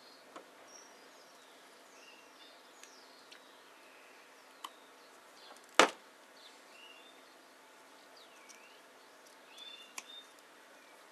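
Snips of pruning scissors cutting through ficus roots: a few light clicks and one sharp, loud snip about six seconds in. Small birds chirp in the background.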